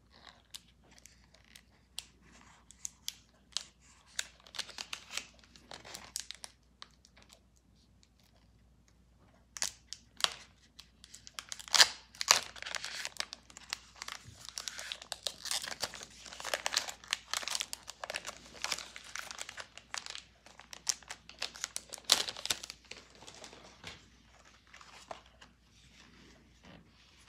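Pokémon trading-card booster pack's shiny foil wrapper crinkling and tearing as it is pulled open by hand, in irregular crackles, loudest around the middle and dying down near the end.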